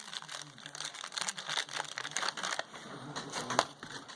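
Packaging being unwrapped by hand, crinkling and rustling irregularly, with one sharp click about three and a half seconds in.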